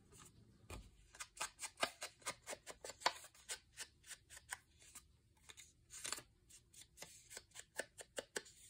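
Ink blending tool's foam pad being rubbed and dabbed over the edges of a paper pocket: a quick run of short scuffing strokes, several a second, with a brief lull midway.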